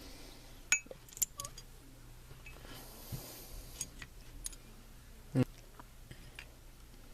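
Metal parts of a cap-and-ball revolver being handled and set down, making a scatter of sharp clicks and clinks. There is a short hiss about three seconds in.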